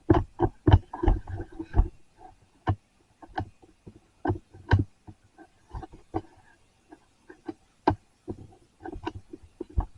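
Irregular series of light knocks and clicks, a few a second, some with a dull low thump, like objects being handled close to the microphone.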